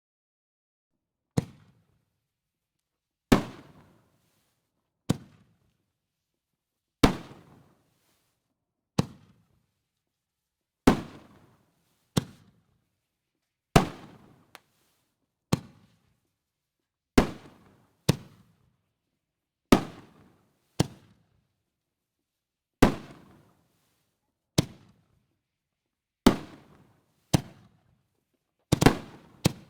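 Firework shells going off one after another: sharp bangs roughly every one to two seconds, each trailing off in an echo, coming faster near the end.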